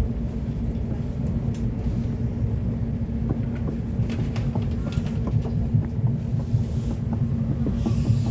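Elizabeth line Class 345 train running between stations in tunnel, heard from inside the carriage: a steady low rumble with a constant hum and scattered light rattles and clicks.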